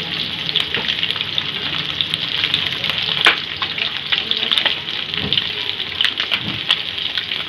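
Marinated silver anchovies shallow-frying in hot oil on a tava, their second side frying just after being turned. A steady sizzle with frequent crackles and pops, and one sharper pop about three seconds in.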